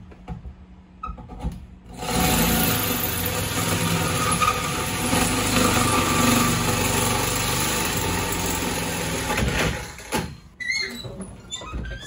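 Power drill running steadily for about eight seconds as it cuts the large lock hole through the metal school bus door, starting about two seconds in and stopping just before the end.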